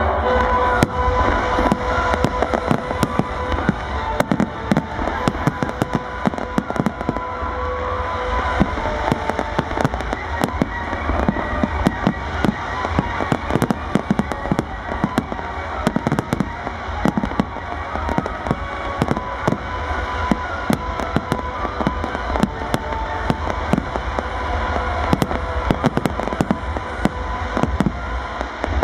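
A fireworks display firing a continuous barrage: a dense rattle of shell bursts and crackle, with many sharp bangs close together throughout.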